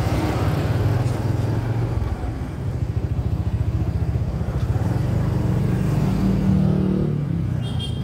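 Motorcycle engine of a Philippine tricycle (motorcycle with sidecar) running at cruising speed, heard on board as a steady low pulsing drone. The engine note rises a little about six seconds in.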